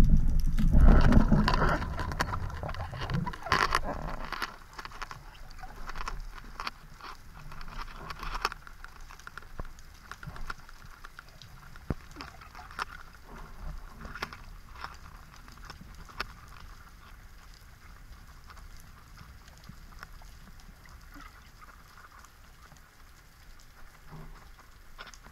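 Underwater sound picked up by a speargun-mounted camera: a burst of loud rushing water noise in the first four seconds, then faint scattered clicks and crackling.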